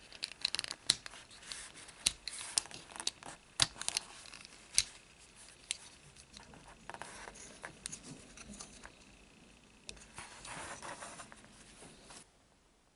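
Small plastic transforming toy car being handled, its hard plastic parts clicking and snapping as they are moved into place. The clicks come thick and sharp for the first few seconds, then give way to quieter rubbing and handling, and the sound stops shortly before the end.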